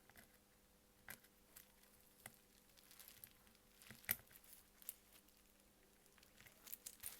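Near silence with a few faint, sharp clicks and taps from small phone parts and tools being handled.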